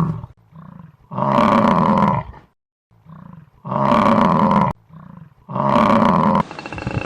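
Big cat roaring: three long, loud roars, each preceded by a shorter, quieter breath-like sound, cut off abruptly near the end.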